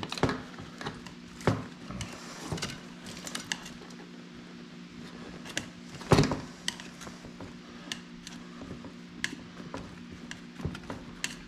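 A tire lever prying a fat-bike tire's bead up off the rim, worked around the wheel: scattered small clicks and scrapes, with one loud knock about six seconds in.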